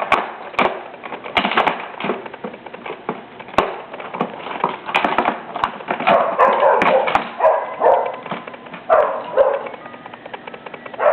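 Hard plastic baby toys clicking and knocking over and over. A dog barks in short bursts in the second half.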